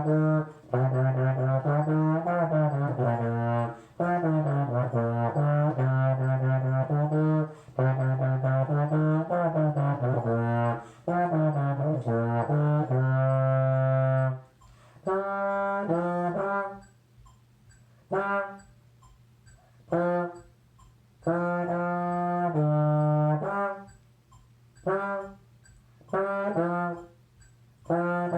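Solo trombone playing a melody. The first half is long, connected phrases; from about halfway the notes come in shorter phrases with brief pauses between them.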